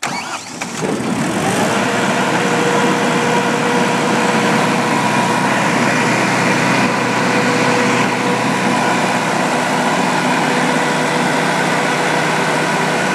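Kohler (Lombardini KDW2204T) four-cylinder turbodiesel on a 28 kW generator set starting up: it catches at once, rises in pitch as it comes up to speed over about the first second and a half, then runs steadily at governed speed, heard with the enclosure doors open.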